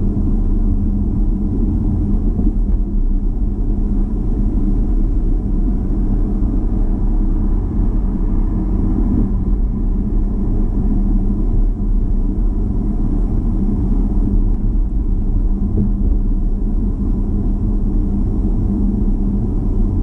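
Car driving, heard from inside the cabin: a steady low rumble of engine and tyre noise with a faint constant hum.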